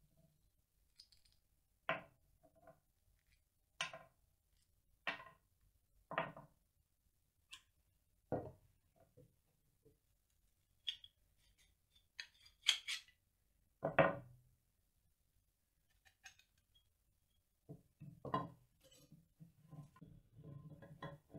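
Rusty steel saw-frame parts, nuts and washers, and hand tools clinking and knocking against each other and the wooden table as the old saw is taken apart with pliers and a wrench. A string of separate sharp clinks comes a second or two apart, then a louder group of clinks a little past halfway, and a busier spell of small knocks and rattles near the end.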